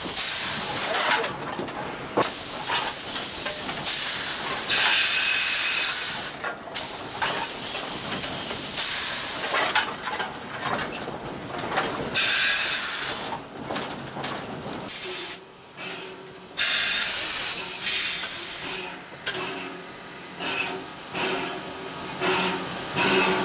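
Steam hissing from a 1910 Baldwin steam locomotive, in loud blasts lasting from about a second to several seconds that cut in and out irregularly. A faint low steady hum lies underneath in the second half.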